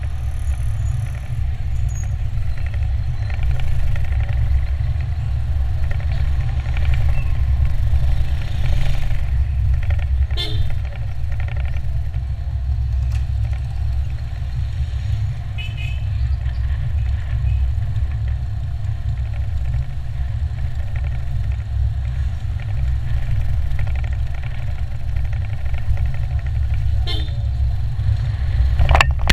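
Steady low rumble of a car driving along a road, with short vehicle horn toots about ten seconds in, again near sixteen seconds, and near the end.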